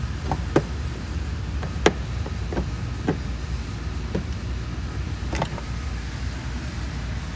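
Scattered clicks and taps of engine-bay parts being handled and fitted, about six in all, the sharpest a little under two seconds in, over a steady low rumble.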